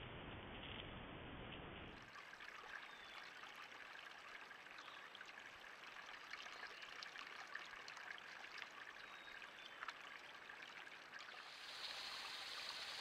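Faint trickling of a small forest creek, an even hiss with faint ticks. It sets in about two seconds in, after a low steady hiss, and grows louder near the end.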